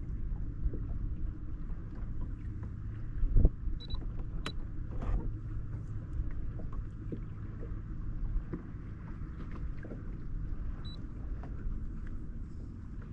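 Steady low rumble of water and wind around a fishing boat, with scattered small knocks against the hull and a louder thump about three and a half seconds in. Two short high beeps sound, one near four seconds and one near eleven.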